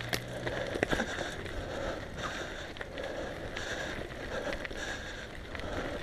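Mountain bike riding along a dry dirt singletrack: steady tyre and trail noise over dirt and loose gravel, with a couple of sharp knocks from bumps near the start and about a second in.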